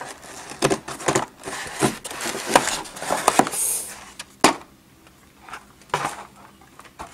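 Hard plastic of a Hot Wheels Mega Hauler toy car transporter being handled: a run of uneven clicks, knocks and rattles as its hinged levels are moved and the truck is taken out of its cardboard box, with a brief scraping hiss midway and one sharp click about four and a half seconds in.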